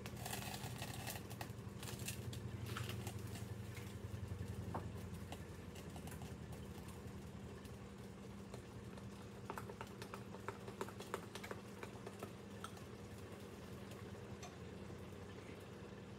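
Hoe cakes frying in oil in a pan, with a light, irregular crackle and scattered pops, thickening into a quick run of pops about ten seconds in, over a steady low hum.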